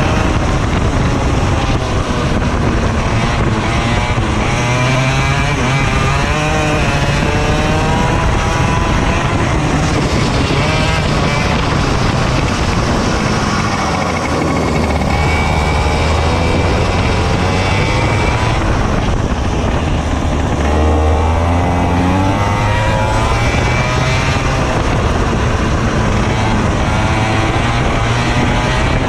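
Racing kart engine heard from the driver's seat, its pitch rising and falling over and over as it accelerates out of corners and slows into the next.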